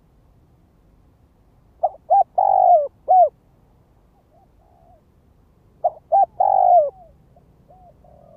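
Spotted dove cooing: two phrases about four seconds apart, each a few short hoots around one longer, slightly falling coo, with fainter coos in between. It is the male's calling song, used as a decoy call to draw in wild doves.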